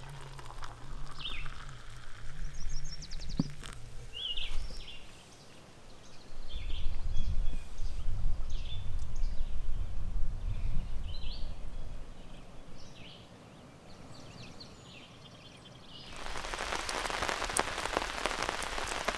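A rain shower starting abruptly about three seconds before the end, a dense hiss of raindrops. Before it, scattered short bird chirps, and a low rumble in the middle.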